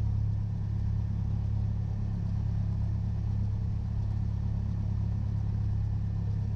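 Cessna 172's piston engine and propeller idling, a steady low drone heard inside the cockpit.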